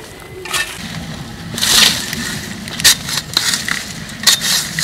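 Digging tool jabbing and scraping into dry, sandy soil at a scorpion burrow: a run of irregular crunching scrapes.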